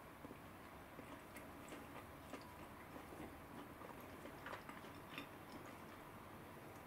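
Soft mochi rice cake being stretched and pulled between fingers: faint, scattered sticky clicks and squishes, a couple slightly louder past the middle.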